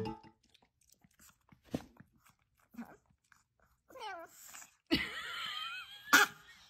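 A small dog, a chihuahua, eating dry food from a bowl, with a few faint crunches. Then come high, wavering, gliding vocal sounds from the dog and three short sharp bursts.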